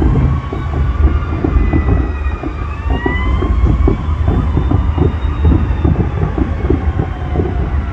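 Fireworks barrage: rapid, near-continuous bangs and crackles over a deep rumble, with an emergency vehicle siren wailing up and down in pitch behind it.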